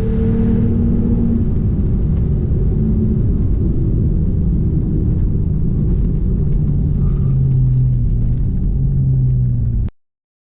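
Car engine running at a steady pace under a heavy low rumble, its pitch settling lower in the second half. The sound cuts off abruptly about ten seconds in.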